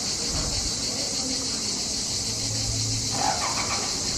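Steady, shrill chorus of cicadas, an unbroken high buzz that does not rise or fall.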